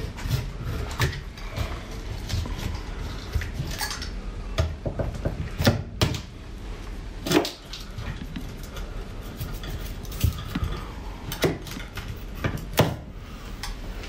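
Hand tools working at a metal ceiling electrical box: irregular clicks, scrapes and snips as the sheathing of the electrical cable is cut back to the clamp, with a few sharper metal clicks scattered through.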